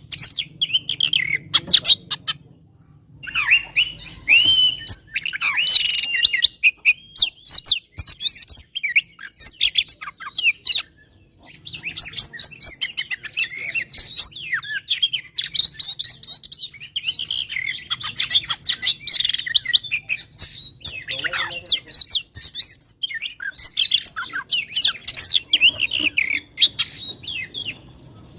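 Oriental magpie-robin (kacer) singing a loud, fast, varied string of whistles and harsh chattering notes, broken by two short pauses. It is the excited fighting song that keepers play to provoke other magpie-robins.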